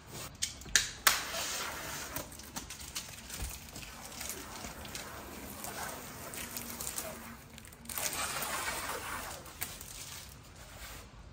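Hands handling a wall-mounted flat-screen TV and its cable: a few sharp clicks in the first second, then rubbing and rustling, with a second stretch of rubbing near the end.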